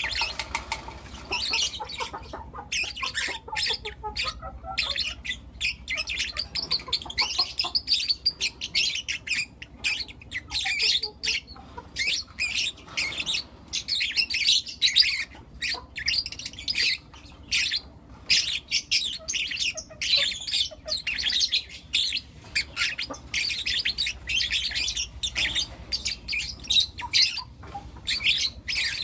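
Several young lutino lovebirds chirping and squawking, a dense run of rapid, high, shrill calls that overlap with hardly a pause.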